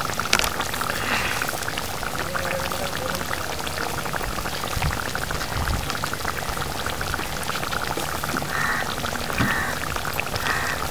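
Fish curry simmering in a steel kadai on a gas stove: a steady dense crackle of small bubbles popping.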